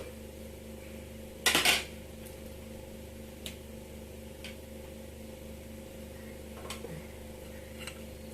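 Metal kitchen utensils clinking against a pot: a quick cluster of clinks about one and a half seconds in, then a few light single taps, over a steady low hum.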